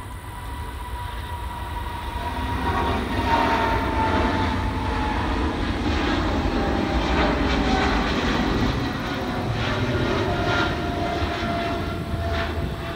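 Twin-engine Boeing 777-200ER airliner taking off and climbing out at takeoff power. The jet noise grows louder over the first three seconds, then holds as a steady deep rumble with crackle, under a whine that slowly drops in pitch.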